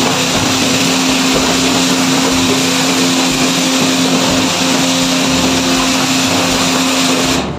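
Self-service car wash high-pressure wand spraying a rinse of water onto a scooter: a loud, steady hiss of the jet over a steady low hum, cutting off shortly before the end.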